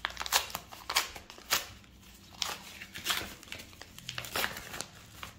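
Packaging, a padded mailing envelope, crinkling and rustling as it is handled: a string of short, irregular crinkles.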